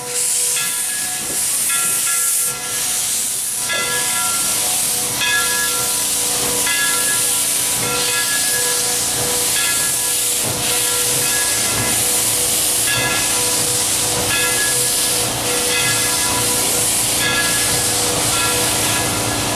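Central Railroad of New Jersey No. 113, a 0-6-0 steam switcher, hissing heavily with steam venting around its cylinders as it moves off in reverse, with a rhythmic beat about once a second under the steady hiss.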